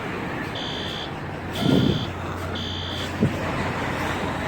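System Sensor P2RK fire alarm horn sounding in the temporal-three evacuation pattern: three half-second high beeps about a second apart, a pause, then the next group starting near the end. A brief low rumble comes under the second beep, then a sharp knock about three seconds in, over steady street hum.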